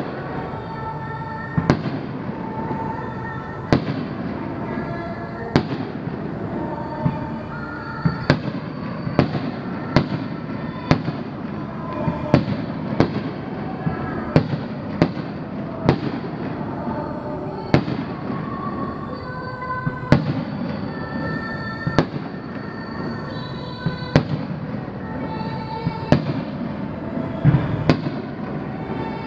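Aerial firework shells bursting in a display, sharp bangs coming every one to two seconds, with a steady background of voices underneath.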